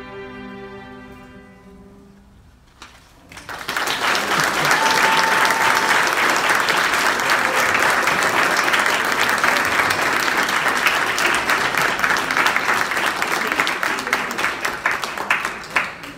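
A string ensemble's final held chord fades away over the first two seconds. After a short gap, audience applause starts about three and a half seconds in and goes on steadily, thinning slightly near the end.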